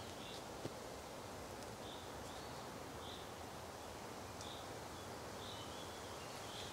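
Faint woodland ambience: a steady low hiss with short, high chirps from a small bird, repeating irregularly about once a second, and one small tick about half a second in.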